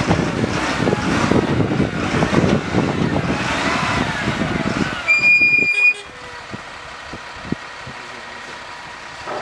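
A noisy, shifting rumble and clatter, then one loud high-pitched beep lasting under a second about five seconds in. After it comes a much quieter steady hum with a few faint clicks.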